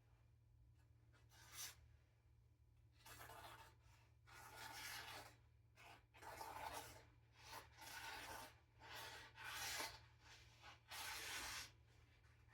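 A knife edge slicing through thin single-ply paper in a series of short faint strokes, each under a second. The cut catches and tears a little, typical of an edge fresh off a coarse 300-grit stone.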